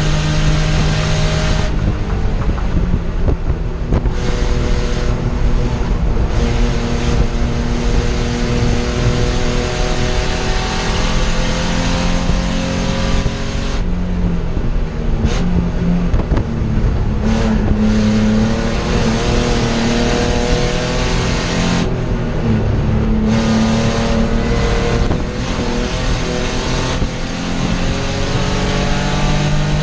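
BMW E30 race car's engine at full throttle, heard from inside the stripped cockpit. Its pitch climbs steadily, then several times breaks off sharply and drops as the driver shifts or lifts, and climbs again.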